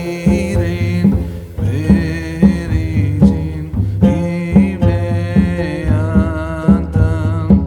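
Background music with a steady beat, bass and a singing voice.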